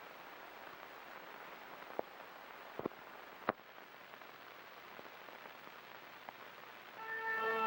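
Steady hiss with a few scattered clicks and pops, the surface noise of an old commercial's soundtrack between spots. Brass music comes in near the end.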